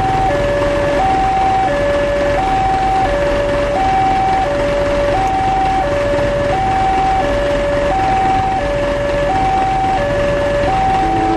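Railway level-crossing warning alarm repeating a steady high-low two-tone signal, each tone about two-thirds of a second long. It sounds while the gates are down for an approaching train.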